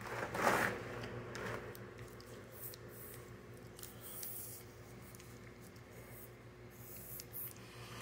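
Spiral tire-plug reamer scraping through the rubber of a tire's tread puncture: two short rasping strokes in the first second and a half, the first the louder, then only faint scattered ticks over a faint steady hum.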